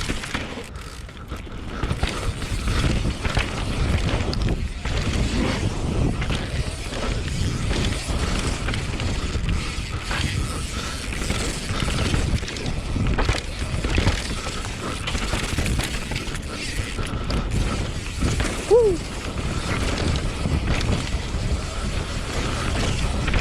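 Carbon full-suspension mountain bike ridden fast downhill: wind rushing over the microphone, with the tyres rolling over rough ground and a steady clatter of the chain and frame.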